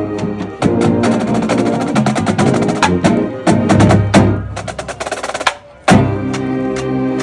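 Marching band playing, with the drumline prominent: rapid drum strokes over held brass chords. The music drops away briefly about five and a half seconds in, then the whole band comes back in loudly.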